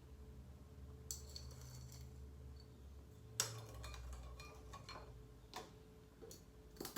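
A teaspoon clinking a few times against a cup as sugar is stirred in, faint, with the loudest clink about halfway through.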